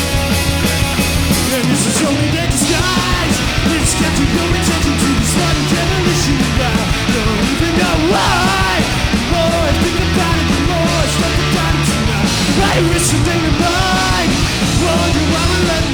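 Live punk rock band playing loud distorted guitars, bass and drums, with shouted singing.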